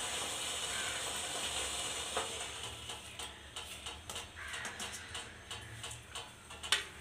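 Soft hiss of steam off a freshly uncovered steel pot of steamed rice dumplings, fading over the first couple of seconds. Then light taps and scrapes of a steel spoon against the steel bowl as the dumplings are lifted, with one sharper click near the end.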